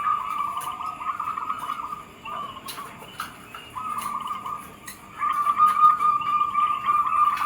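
Zebra dove (perkutut) cooing: rapid trilled, bubbling phrases held on one pitch. The song breaks off about two seconds in, resumes near four seconds, and continues to the end after a short pause, with a few faint clicks.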